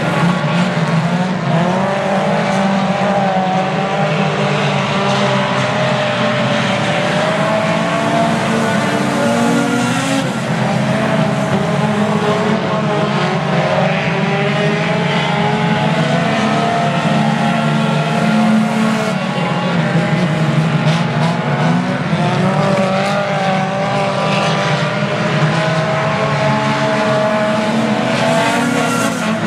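A pack of four-cylinder dirt-track stock cars racing, several engines running at once. Their pitch rises and falls continuously as the cars lift and accelerate.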